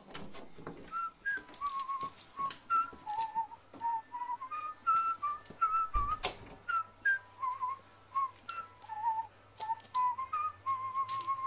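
A whistled tune, one clear note at a time with small trills, with scattered clicks and a sharp knock about six seconds in.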